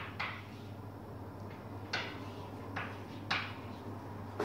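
Chalk tapping and scraping on a blackboard as symbols are written: a few short, sharp taps about two to three seconds apart, over a steady low hum.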